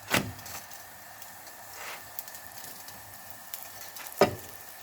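Msemen frying in an oiled pan with a faint, steady sizzle. There are two sharp knocks, one right at the start and one about four seconds in.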